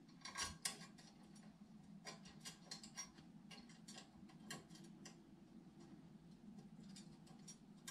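Faint, irregular clicks and ticks of small metal hardware handled by hand: a screw and washer being fitted into a T-nut on a flight-simulator collective arm, with a steady low hum underneath.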